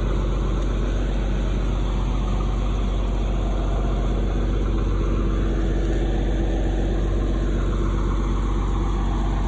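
Tractor engine idling steadily, with an even low hum that does not change.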